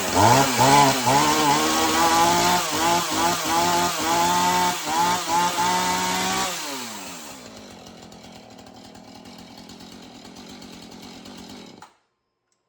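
Husqvarna 445 two-stroke chainsaw engine running just after starting, revved up and down about twice a second. A little past halfway the revs fall away and it runs more quietly, then cuts off abruptly near the end.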